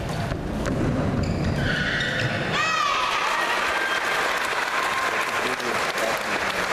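Sneakers squeaking sharply on the badminton court floor during a rally, several short squeals with a cluster about two and a half seconds in. As the point ends, the crowd applauds and chatters.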